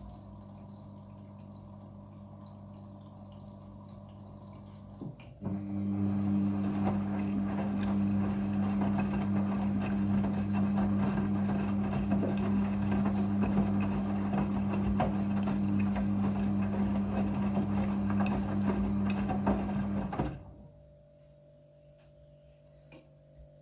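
Front-loading washing machine during its rinse: a steady electric hum, then about five seconds in a click and water rushing through the machine with a louder hum, which stops suddenly some fifteen seconds later, leaving a quieter hum.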